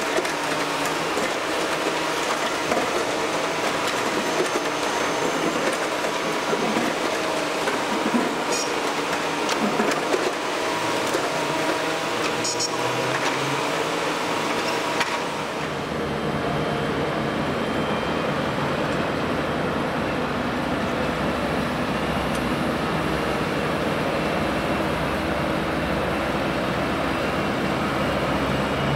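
Diesel engines of a tracked excavator and a dump truck running on a construction site, over steady city traffic noise. About halfway through the sound changes to a deeper, steadier engine rumble.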